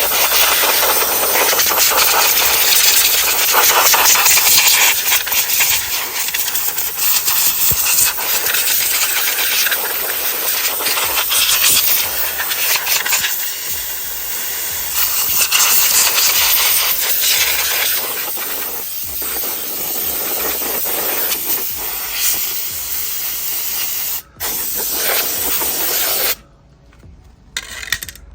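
Compressed-air blow gun hissing as it blasts dirt off a nitro RC truck, pulsing in strength, with a brief break near the end before it almost stops.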